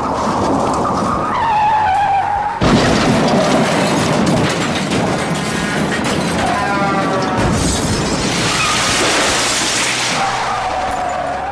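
Car-crash sound effect over dramatic music: a tyre screech, then a sudden loud crash about two and a half seconds in, followed by a long stretch of crashing noise and another screech near the end.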